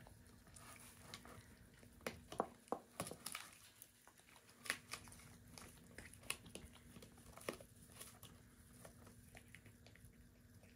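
African crested porcupines gnawing on a wooden log, giving faint, irregular crunches and cracks of teeth on wood, with a brief cluster of louder ones about two to three seconds in.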